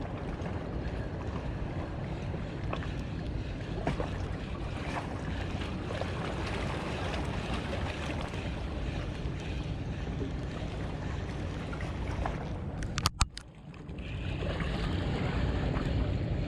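Steady wind and water noise on the microphone, with a few faint clicks and a couple of sharp clicks about 13 seconds in, followed by a brief lull.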